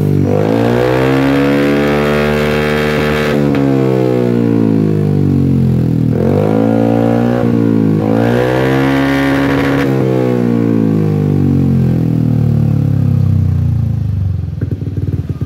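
Yamaha Aerox 155's single-cylinder engine breathing through a newly fitted aftermarket racing exhaust, revved up and down several times and then easing back to a pulsing idle near the end.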